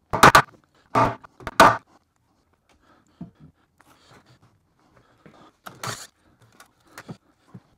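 Wooden crate boards knocking and clunking as they are pulled off a shipping crate and handled: several sharp knocks in the first two seconds, then fainter clicks and rustling, and a short harsher knock near six seconds.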